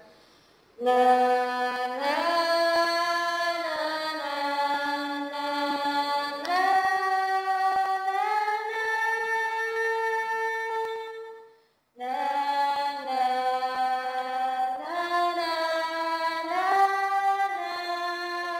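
Background music of sustained singing: long held notes that slide from one pitch to the next. It starts about a second in and breaks off briefly past the middle before resuming.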